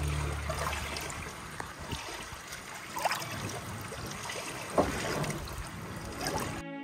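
Small lake waves lapping against a shoreline rock, with a soft splash every second or two as each wave washes over it.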